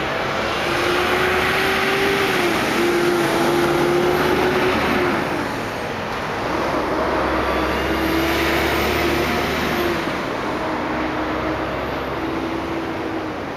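Nearby motor-vehicle noise: an engine hum that wavers slightly in pitch over a wash of road noise, swelling twice and easing off.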